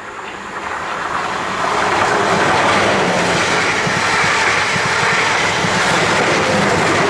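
South Western Railway electric multiple-unit train passing close by: the rush of wheels on rail grows louder over the first two seconds as it nears, then holds steady and loud as the coaches run past, with a low hum under it.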